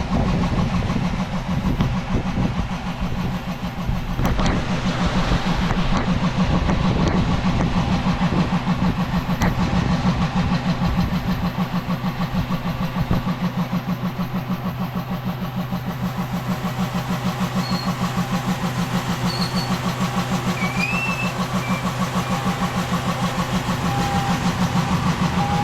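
Car engine idling steadily, with an even, rapid pulse.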